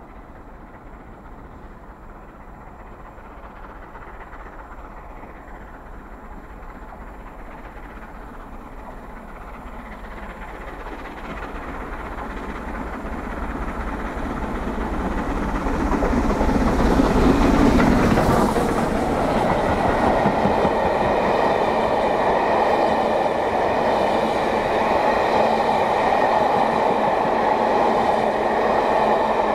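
LMS Royal Scot class steam locomotive 46100 Royal Scot approaching at speed, growing steadily louder until it passes a little over halfway through. Then the train's coaches roll past in a loud, steady rush.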